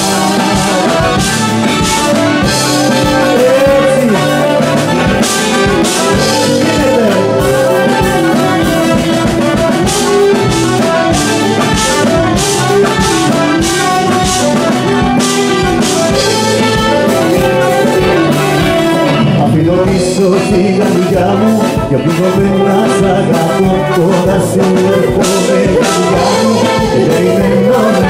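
Music played by a band with brass and drums, with a singing voice carrying the melody over a steady beat.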